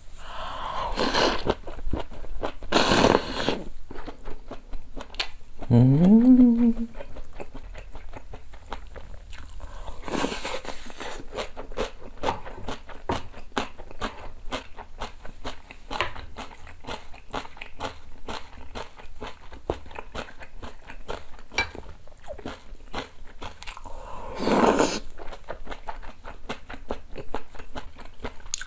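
A person eating ramen noodles in seaweed soup close to the microphone: four loud slurps of noodles and broth, about a second in, at three seconds, around ten seconds and near the end, with wet chewing and lip-smacking clicks throughout. Around six seconds a short rising hummed "mm" of enjoyment.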